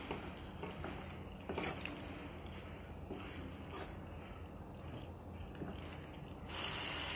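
Spatula stirring chicken with yogurt, onion and capsicum in a kadai: faint, soft scrapes and squishes over a low steady hum. Near the end a steady hiss begins.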